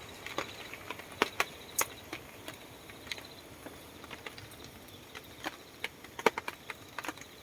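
Scattered raindrops tapping irregularly on a tarp shelter, a few sharp, loud hits among lighter ones. A faint, steady high insect trill runs underneath.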